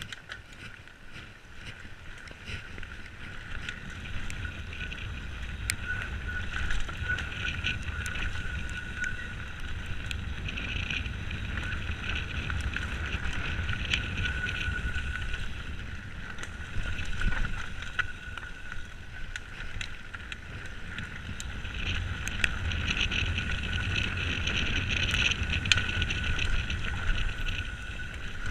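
Mountain bike riding fast down a dirt trail, heard from a chest-mounted GoPro: a continuous wind and tyre rumble with frequent rattles and knocks from the bike over the rough ground, and a steady high-pitched buzz running through it. It grows louder after the first few seconds as the speed picks up.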